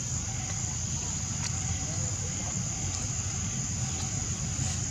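Outdoor ambience: insects buzzing steadily in a constant high drone over a low, even rumble.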